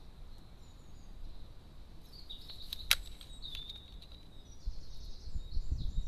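Crow feeding at a seed tray: one sharp tap about three seconds in and a few low knocks near the end, over faint small-bird chirping and a steady high whine.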